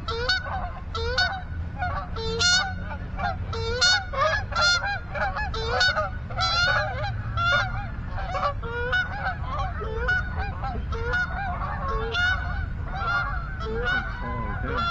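A flock of geese honking: many short, overlapping honks one after another without a break, over a steady low rumble.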